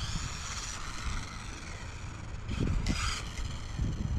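Small brushed electric motor and gears of a 1/24-scale Losi Micro B RC buggy whining steadily as it drives slowly on pavement, with a brief louder rush about three seconds in. Low rumbling thumps come in near the end.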